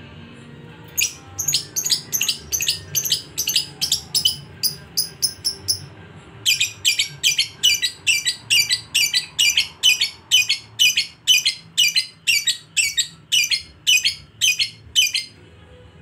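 Lovebird giving its long 'ngekek' chatter: rapid runs of sharp, high-pitched notes, about three a second, in two bouts with a short pause between.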